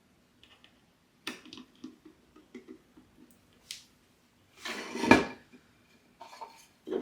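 A hand screwdriver tightening small screws on a doorbell mounting plate: a string of small ticks and scrapes, then a louder, short clattering rustle of parts being handled about five seconds in.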